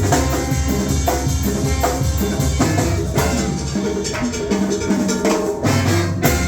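Music with a drum kit and percussion keeping a steady beat under pitched instruments and bass.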